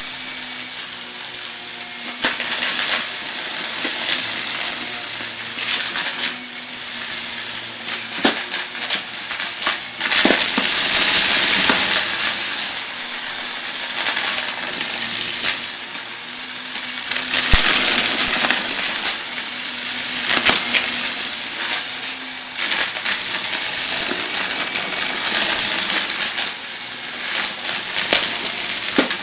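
Vacuum cleaner running and sucking up crunchy debris, a steady rushing hiss full of crackling and rattling as grit is pulled up the machine. It swells louder for a couple of seconds about ten seconds in.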